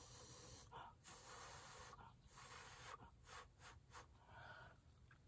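Faint, repeated puffs of breath blown from the mouth onto wet acrylic paint, each a short hiss of air with brief pauses between, pushing the paint outward into a bloom.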